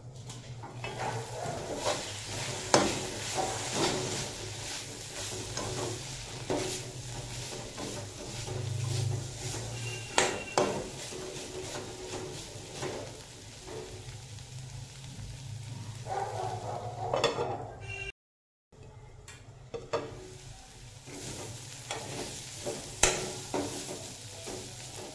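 A metal spatula stirs and scrapes bitter gourd and potato pieces around an aluminium kadhai, with a light sizzle of frying and several sharp clinks of the spatula against the pan. The sound cuts out briefly about two-thirds of the way through.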